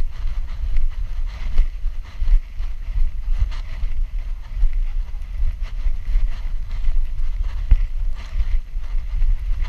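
Wind buffeting the mic of a GoPro strapped to a dog's back, a gusty low rumble that swells and fades, with faint irregular clicks and knocks as the dog moves.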